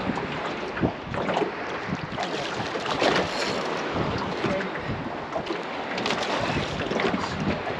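Wind buffeting the microphone over water splashing and slapping around a small boat, with irregular short splashes and knocks.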